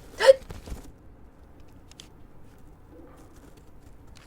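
A single short, sharp hiccup, a quick voiced 'hic' rising in pitch, about a quarter of a second in.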